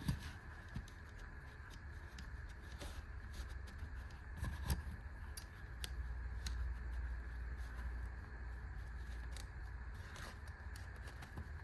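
Small Crescent adjustable hand tool being worked and handled: scattered light metallic clicks of the oiled jaws and joint, some seconds apart, over a steady low background hum.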